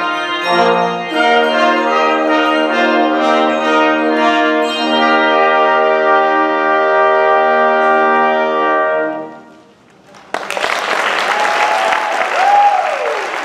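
Handbell choir and brass ensemble of French horn, trumpets and trombones holding the final chord of a hymn arrangement, which fades out about nine seconds in. After a brief silence, audience applause with a few whistles breaks out.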